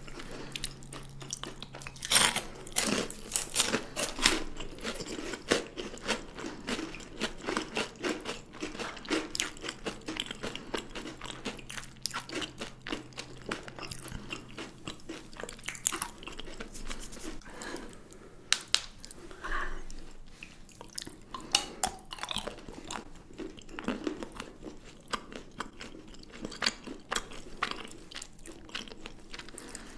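Close-up sounds of chocolate being bitten and chewed: crisp crunches and crackles, densest a couple of seconds in and then coming in scattered bites and chews.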